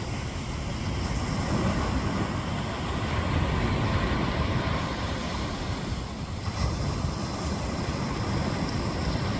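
Ocean surf washing onto a beach, a steady rushing noise that swells and eases, with wind rumbling on the microphone.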